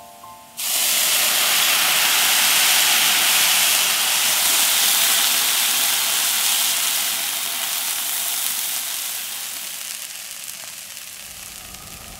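Water poured into a hot frying pan of black beans and caramelized onions, flashing to steam with a loud sizzle and hiss. It starts suddenly about half a second in and slowly fades as the pan is stirred.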